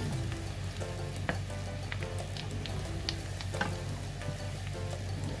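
Chopped garlic and onion sizzling in bubbling melted butter in a stainless steel pan, stirred with a wooden spatula that scrapes and taps the pan now and then.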